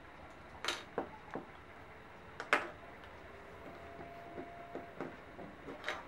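Small clicks and taps of a screwdriver and cable being handled on a table while a plug is taken off a small fan motor. The two sharpest knocks come just under a second in and about two and a half seconds in.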